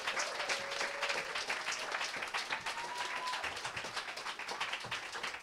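Audience applauding steadily, a dense patter of many hands clapping, as the guests walk on stage.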